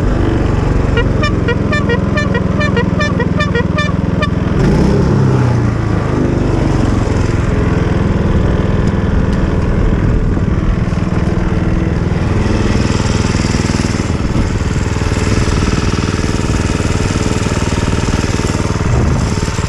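A go-kart's small gas engine running under way as the kart drives over grass and gravel. Near the start, a run of short high chirps repeats several times a second for about three seconds.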